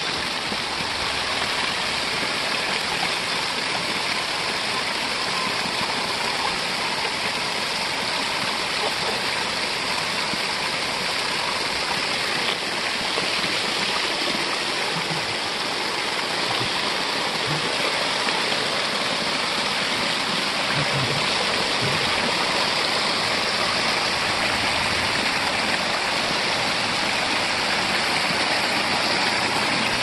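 A small waterfall and creek rushing over rocks: a steady, even rush of falling water.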